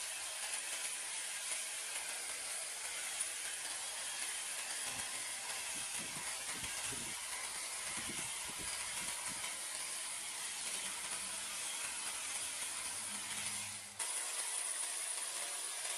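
Handheld hedge trimmer running and cutting through a box hedge, a steady hissing buzz of the blades shearing leaves. It drops out briefly near the end and comes back slightly louder.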